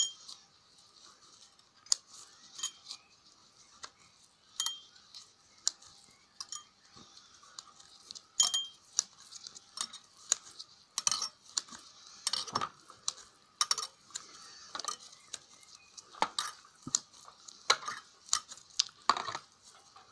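Steel casing of an AA alkaline battery being peeled off with pliers: irregular sharp metallic clicks and clinks as the thin can bends and tears, some louder than others.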